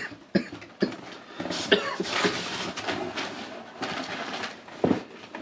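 Rustling and crinkling of packaging as hands rummage through a box of boxed figures, with many small scrapes and knocks.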